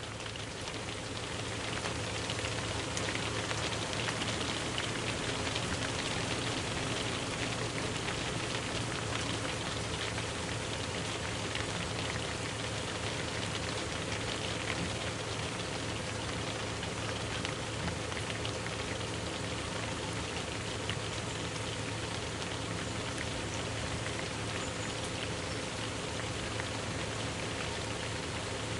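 A steady, even hiss of noise like rain falling, with a faint low hum underneath.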